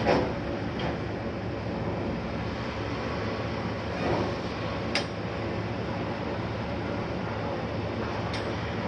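Heavy diesel engine of a Demag AC 335 mobile crane running steadily, with a few sharp metallic clanks, the loudest right at the start.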